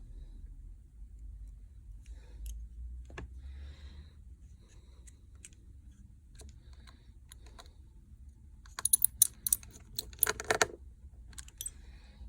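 Light taps and clicks of small repair tools and phone parts, scattered at first, then a quick run of sharper, louder clicks about nine to eleven seconds in.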